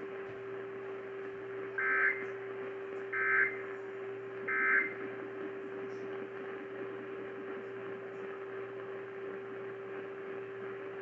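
Three short bursts of Emergency Alert System end-of-message data tones, the buzzing SAME digital code, just over a second apart, received over AM radio; they mark the end of the alert. A steady hum and faint static run underneath.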